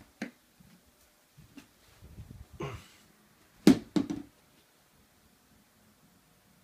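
Handling noise from a phone being moved about: a few light clicks, a low rubbing rumble, then two sharp knocks close together about three and a half seconds in, the loudest sounds here.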